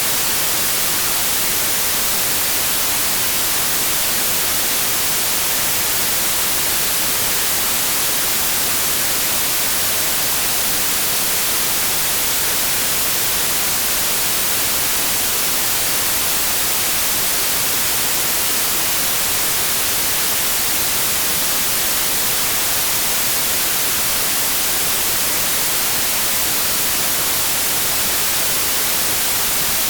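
Steady white noise: an even, unbroken hiss, brightest in the high end, with no changes or other sounds.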